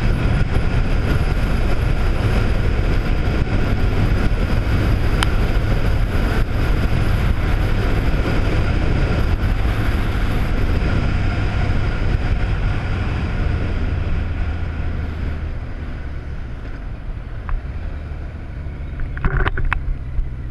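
Touring motorcycle riding along a road: the engine running steadily under a rush of wind and road noise. It eases off and gets quieter about fifteen seconds in, and a few sharp clicks come near the end.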